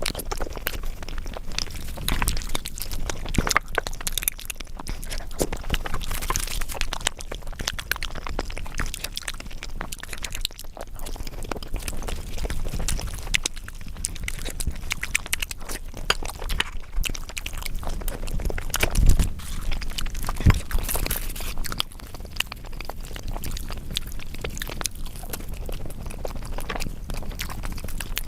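Close-miked chewing and mouth sounds of someone eating fried flatbread with potato curry: a dense run of small wet smacks, crackles and crunches, with a few louder clicks a little past halfway.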